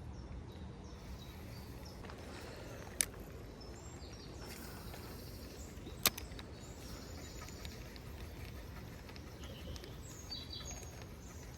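Quiet outdoor background with a low steady rumble, two sharp clicks about three seconds apart, and faint bird chirps near the end.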